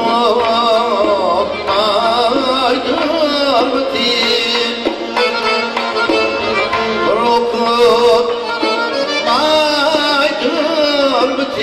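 Live Uzbek Khorezm folk music: doira frame drum, accordion and a long-necked plucked lute playing together, with a wavering, ornamented melody line over them that comes forward in the first few seconds and again near the end.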